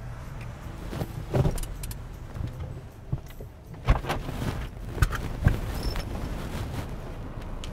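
Keys jangling with scattered clicks and knocks from a car's ignition and controls, heard inside the cabin over a low steady hum.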